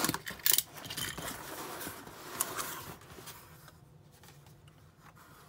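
A utility knife slits the packing tape on a small cardboard box, then the cardboard flaps are pulled open and rustle. The scraping and rustling is loudest about half a second in and dies down after about three seconds.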